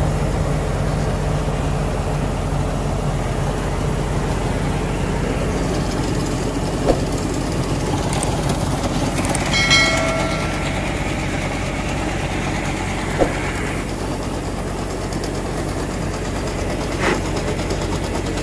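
A tractor-driven grain loading machine running steadily, with a low engine-and-machinery drone as paddy pours from its spout into a trailer. A short horn-like tone sounds about ten seconds in, and a few sharp knocks come through.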